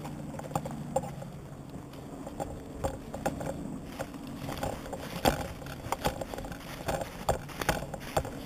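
Footsteps on a dry, leaf-strewn sandy forest floor, with carried gear and the rifle rattling at each step in an uneven run of soft knocks and clicks.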